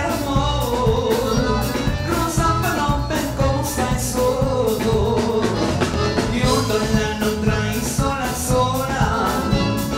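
Live band dance music: a singer over accordion and a steady drum beat.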